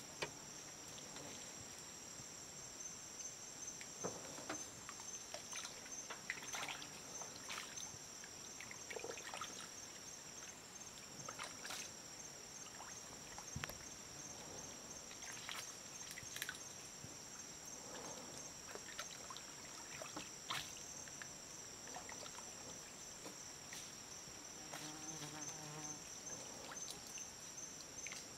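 Steady high-pitched insect chorus, a continuous trill, with scattered small splashes and drips from the water.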